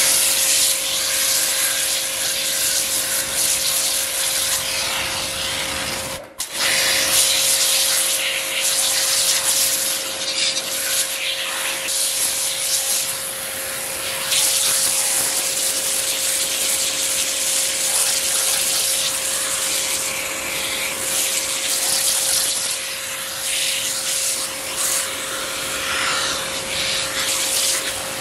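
Pressure-washer jet spraying water onto a laptop keyboard: a steady hiss of spray over a constant hum. It cuts out for a moment about six seconds in.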